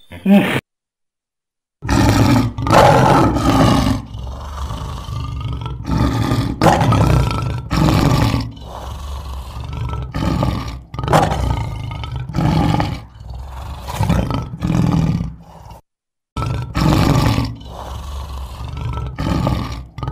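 Lion roaring: a bout of long, loud roars trailing off into a series of shorter grunting calls about a second apart, then a fresh bout of loud roars starting near the end.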